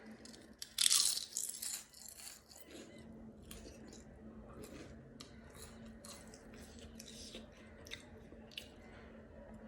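A crisp papad bitten with a loud crunch about a second in, then chewed, with many small crunches and clicks. A faint steady hum runs underneath.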